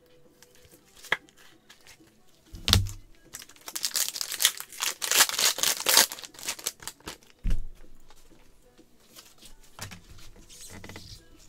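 A trading card pack's wrapper being torn open and crinkled by gloved hands, loudest from about three and a half to six and a half seconds in, then lighter rustling as cards are handled. Two low thumps land about a third and two-thirds of the way through.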